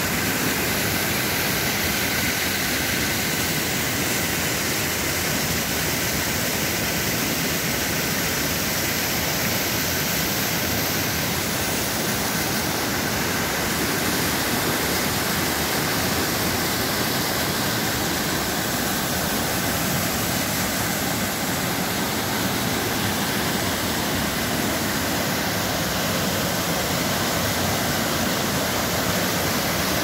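Steady rushing of a waterfall, water pouring and splashing down over large rocks close by.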